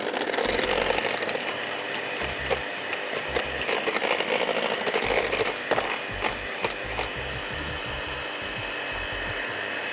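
Electric hand mixer running steadily, beating eggs in a bowl, with scattered clicks along the way.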